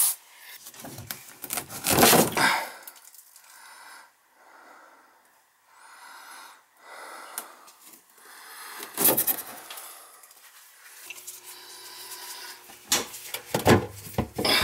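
A hardboard panel being pushed and slid by a gloved hand, rubbing and scraping against its frame, with two louder scrapes, about two seconds in and again near the middle.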